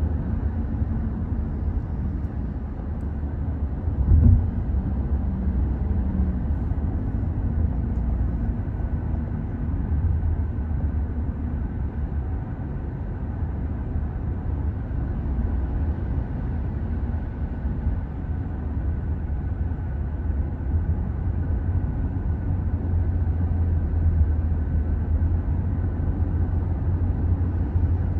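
Steady low rumble of a vehicle in motion, with a brief knock about four seconds in.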